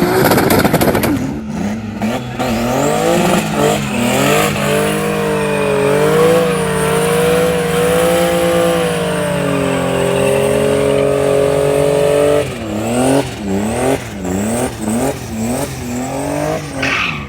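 Turbocharged BMW E36 straight-six revving hard in a burnout, held at high revs with tire squeal, then blipped up and down about half a dozen times near the end.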